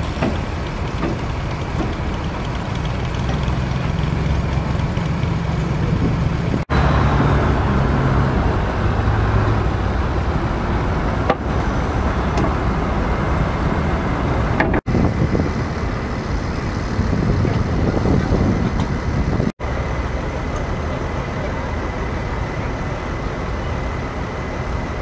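A heavy vehicle engine runs steadily in a low rumble, with outdoor background noise. The sound drops out very briefly three times, at edit cuts.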